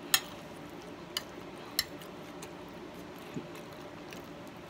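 A metal spoon clinking against a glass baking dish of rice and fried fish: three sharp clinks, the first and loudest just after the start, then two more about a second apart, followed by a softer knock. A faint steady hum lies underneath.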